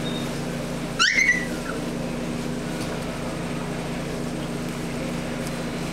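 A Cavalier King Charles Spaniel puppy gives one short, high yelp that rises in pitch about a second in, over a steady low hum.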